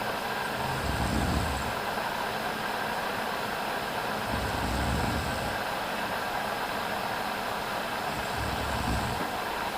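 A sleeping woman snoring: three low snores, each about a second long and about four seconds apart, over a steady background hiss.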